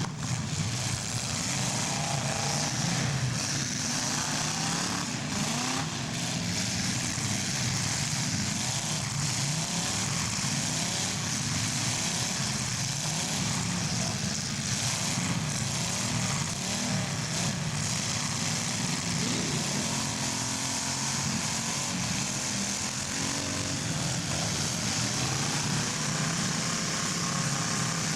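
Engines of several full-size demolition derby cars running and revving together, their pitches rising and falling unevenly over a steady hiss.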